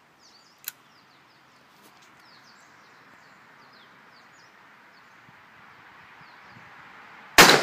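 A single .44 Magnum revolver shot near the end, very loud and sharp, ringing out briefly; before it, only birds chirping over a low hiss.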